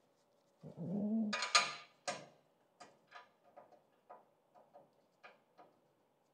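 Hand work on metal saw parts while refitting a shroud. A brief low voice sound, then two sharp metallic clacks, the second about half a second after the first, followed by a run of lighter, irregular clicks as bolts, tools and parts are handled.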